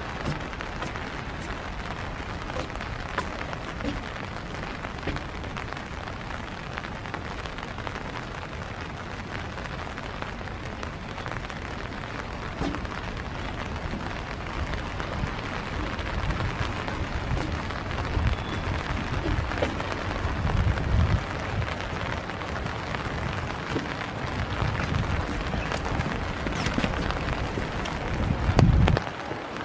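Steady rain falling on a boardwalk and the wooded hillside around it. Low rumbling bumps come and go in the second half, loudest just before the end.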